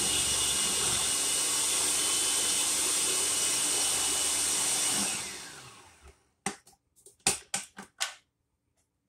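Food processor motor running steadily as it blends pie dough, switched off about five seconds in and spinning down. A few sharp plastic clacks follow as its lid is taken off.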